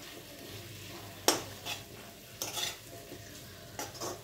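A metal spoon scraping and knocking against a metal kadai as diced potatoes are stirred into a spiced masala, in about six separate strokes, the loudest about a second in.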